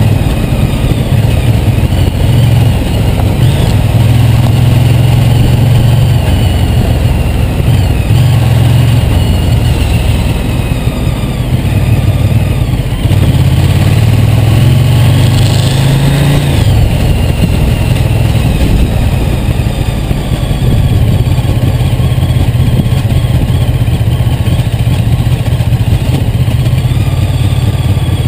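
Ducati GT1000's air-cooled two-valve L-twin engine, heard from on board while riding, pulling and easing off with the throttle. About halfway through it revs up with a rising pitch, then drops back.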